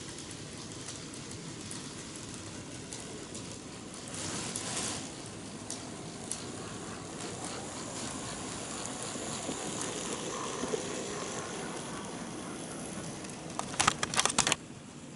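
N-gauge model train running on its track: a steady rolling rumble with a faint high motor whine. A quick run of sharp clicks, the loudest sound, comes near the end.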